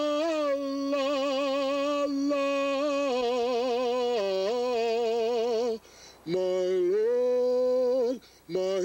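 A man singing unaccompanied, holding long drawn-out notes with vibrato and sliding between pitches, with no clear words; he breaks off briefly twice near the end.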